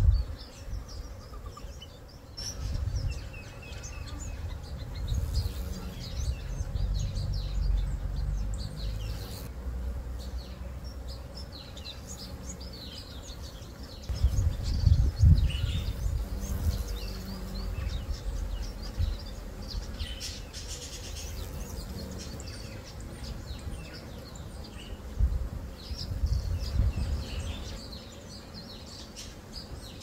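Small garden birds chirping and twittering in many short, high calls, over a low rumble on the microphone that swells in gusts and is loudest about halfway through.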